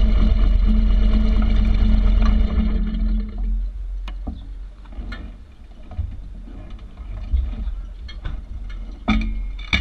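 Harley-Davidson Street Glide's V-twin engine idling steadily, then dying away about three seconds in. A quieter stretch with a few clicks and knocks follows.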